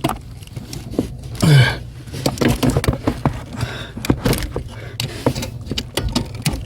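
A short vocal grunt, then a string of small metallic clicks, knocks and rattles as a bolted-in part is worked loose from under a car's dashboard.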